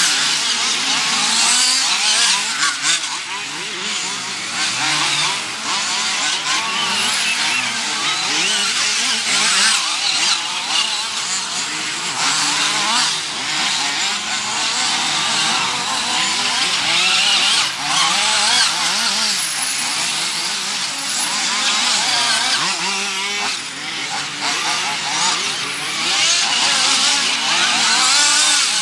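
Several nitro RC off-road buggies' small glow engines revving up and down as the cars race and corner together, their high, buzzing whines overlapping and rising and falling constantly.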